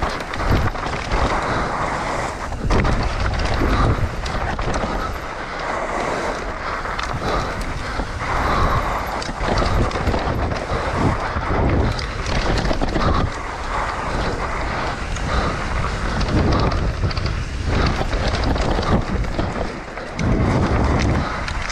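Propain Ekano 165 mountain bike running fast down a dirt forest trail: knobby tyres rolling and scrubbing over loose dirt, with frequent knocks and rattles from the bike over bumps. Wind buffets the camera microphone.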